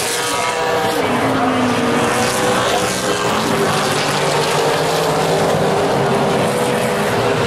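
A pack of Super Late Model stock cars racing on a paved oval, their V8 engines running hard. The pitches of several engines overlap and shift slowly up and down as the field goes by.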